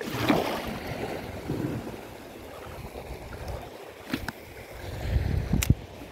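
Shallow sea water sloshing and splashing around an angler wading, in irregular surges, with two sharp clicks near the end.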